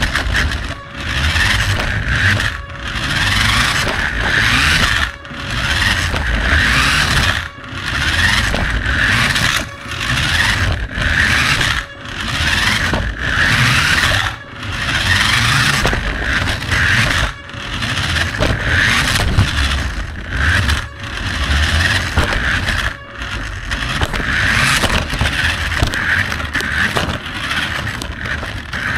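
Toy RC car's electric motor and drivetrain running loud and close, with its tyres on a hard floor; it throttles on and off, dropping away briefly every second or two.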